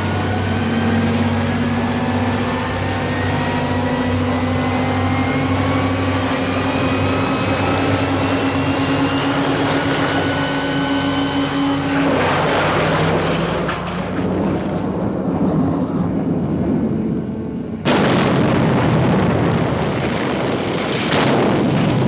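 Film sound effect of a submarine's engines driven at full speed for ramming: a steady drone with a whine that rises slowly for about twelve seconds, then a rushing noise. Two loud noisy bursts follow, a long one about eighteen seconds in and a shorter one near the end.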